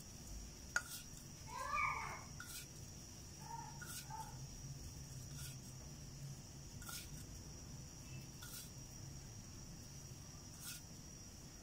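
Quiet room tone with a faint steady high whine and soft clicks about every one to two seconds. About two seconds in comes a short animal call that bends in pitch, followed by two fainter short calls about four seconds in.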